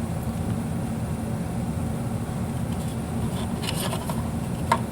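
Steady low mechanical hum of room machinery, with a few light clicks about three and a half to four seconds in and a sharper tick near the end.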